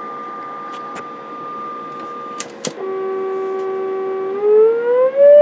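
Audio test tone modulating the CB transmitter, heard over the bench monitor. A steady high tone is followed by two clicks about two and a half seconds in. A lower, fuller tone then starts and holds steady, then glides smoothly up in pitch over the last second or so as the tone generator is swept during the modulation frequency-response check.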